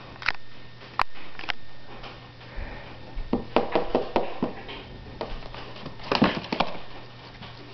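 Light clicks and scratches of a young bearded dragon's claws on a plastic tub as it stalks a cricket, with a quick cluster of them about six seconds in as it lunges at the cricket.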